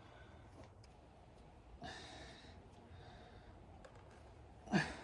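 A person breathing: a breathy exhale about two seconds in and a short sigh falling in pitch near the end.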